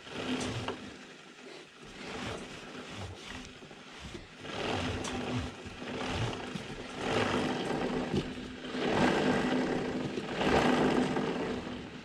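A rag rubbing along a motorcycle's drive chain as the chain runs past, in several swells of scrubbing noise over a steady low hum.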